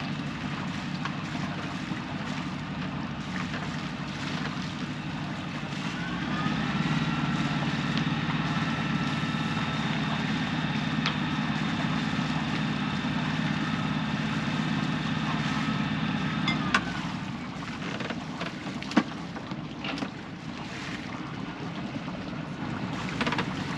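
The Maxi 84 sailboat's engine running as the boat motors out, revved up about six seconds in with a steady whine over the low engine note, then throttled back near seventeen seconds with a click.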